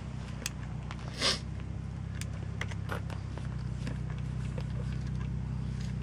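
Steady low hum of an idling engine, with scattered light clicks and a short rustle about a second in.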